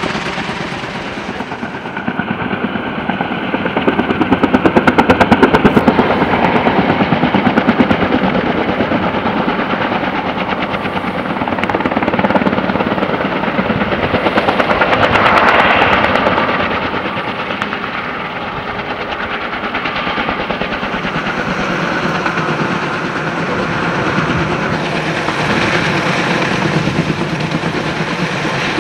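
Kaman K-MAX heavy-lift helicopter with intermeshing twin rotors, hovering and manoeuvring overhead with a long line. Its blades make a rapid, steady chopping that swells louder about four seconds in and again around the middle.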